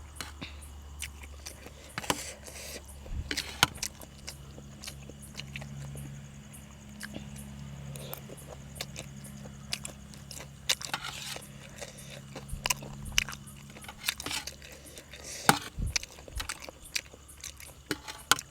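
Close-up chewing and biting of food, with scattered crisp clicks and crunches. Behind it runs a faint steady chirring of crickets, and a low hum rises in the middle stretch and fades before the end.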